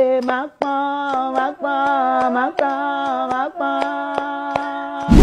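A woman singing in long held notes that step from one pitch to the next, with hand claps keeping a steady beat.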